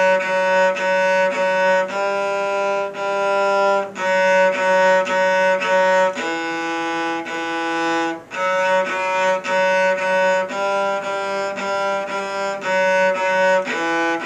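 Cello bowed, playing a simple fiddle tune on the D string in short repeated bow strokes, with a few longer held notes.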